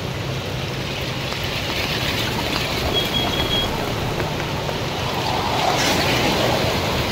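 Steady rush of muddy floodwater flowing across a road, with cars wading slowly through it and their tyres churning the water over a low engine rumble.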